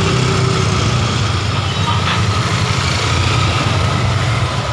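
Small motorcycle engines running at low speed, a steady low rumble close to the microphone.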